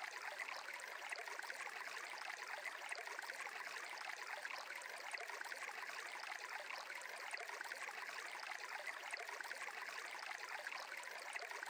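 Faint, steady background ambience of flowing water, like a stream, with no distinct events.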